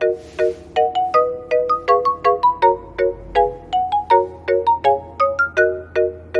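Background music: a bright, ringtone-like melody of short struck notes, about three or four a second, rising and falling in pitch.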